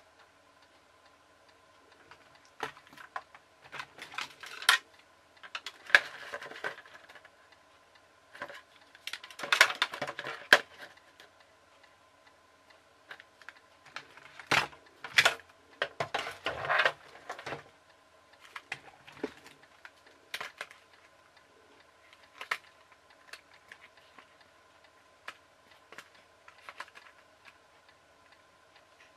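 Hard plastic toy-truck parts being handled and knocked together: irregular clicks, taps and knocks, busiest through the first half and sparser later.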